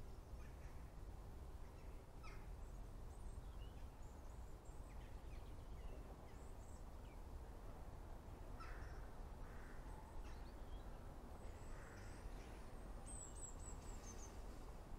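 Faint outdoor ambience: a steady low rumble with scattered distant bird calls, and a quick run of high chirps near the end.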